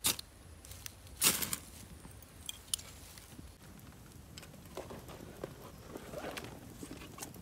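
Handling noises: short rustles and crackles of hands moving dry leaves, plant material and ingredients, the loudest a sharp rustle about a second in, then softer scattered rustling and small clicks.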